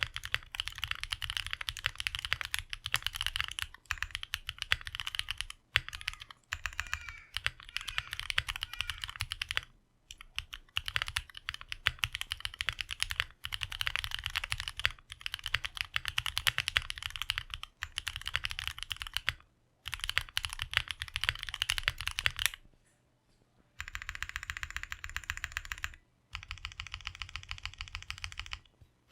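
Fast typing on a custom 65% mechanical keyboard: lubed Snag switches with ePBT ABS keycaps on an aluminium plate in a gummy O-ring mounted Portal case, keys clacking in rapid runs broken by short pauses. For the last few seconds the typing sounds thinner, with less low end.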